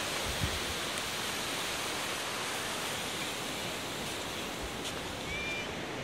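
Sea surf washing steadily onto the beach at high tide: an even, unbroken rushing noise.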